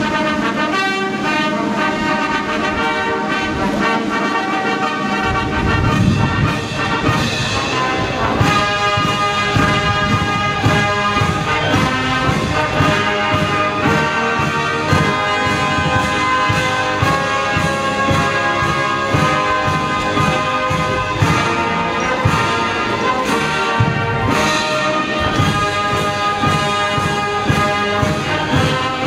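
Military brass band playing, trumpets and trombones carrying the tune over a steady drum beat.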